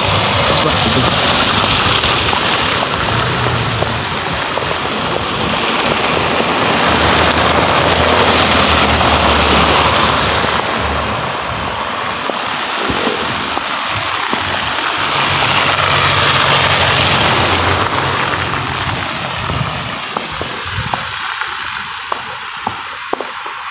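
Cars driving past on a slushy, snow-covered road: tyres hissing through wet slush over a low engine hum, the noise swelling and fading as each car passes. Near the end the traffic noise drops and footsteps crunch in the snow.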